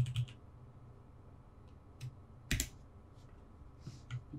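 Typing on a computer keyboard: a quick run of keystrokes at the start, then a few isolated clicks, the loudest about two and a half seconds in.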